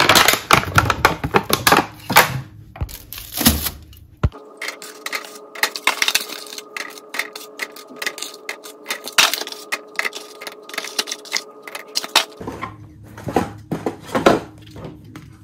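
Irregular light knocks and clicks of fruit and eggs being set by hand into a black wire fruit basket, the items tapping against the wire and each other. A faint steady hum runs under the middle part.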